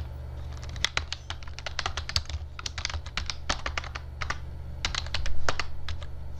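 Typing on a computer keyboard: a run of uneven keystrokes starting about a second in, with a brief pause a little past the middle, over a steady low hum.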